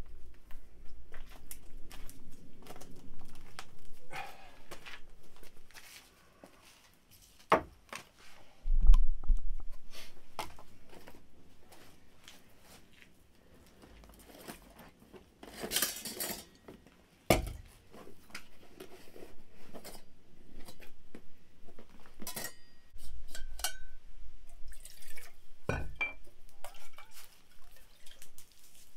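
Metal camp cookware and bottles clinking and knocking as they are handled and set down on wooden planks, with scattered clicks and a few louder thumps, the loudest about nine seconds in.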